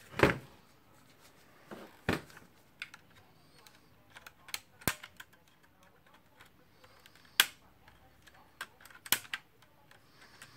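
Scattered sharp clicks and small ticks of carbon-brush springs being worked free from their holders in a Makita HR2470 rotary hammer with a screwdriver, a few louder snaps a couple of seconds apart.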